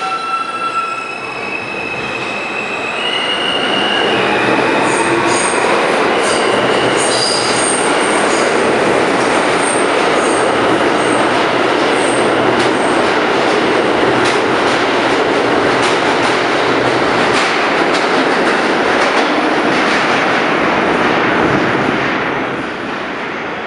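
R160A subway train pulling out of the station. Its motors whine, rising in pitch over the first few seconds as it picks up speed, then give way to a loud rush of wheels on rail, with rapid clicking over rail joints and high wheel squeals. The sound falls away near the end as the last car leaves.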